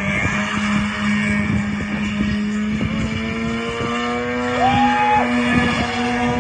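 Mazda RX-8's twin-rotor rotary engine held at high revs during a burnout, its rear tyres spinning on the asphalt. The engine note climbs slowly, with a brief step up in pitch a little past halfway.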